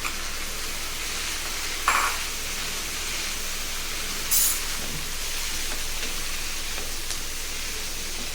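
Chopped cabbage, onion and tomato frying in oil in a pan, giving a steady sizzle, with a single knock about two seconds in and a short clink near the middle.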